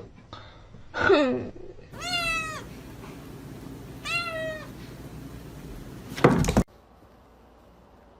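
A cat meowing: a short wavering call about a second in, then two clear high meows about two seconds apart. Near the end a brief loud noise cuts off abruptly.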